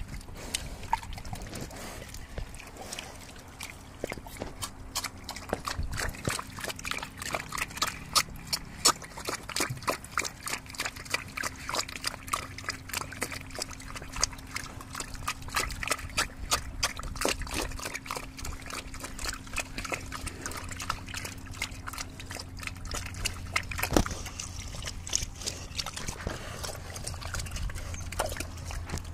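A pig slurping and sucking up watery slop from a feed pan, with rapid wet smacking and sloshing that goes on without a break.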